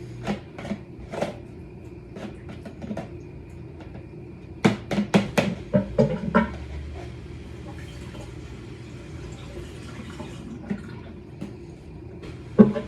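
A spoon clinking and tapping against a dish as seasoned homemade cottage cheese is stirred and scooped for a taste. There are scattered light taps, a quick run of sharper clinks about five seconds in, then a faint steady hum with one knock near the end.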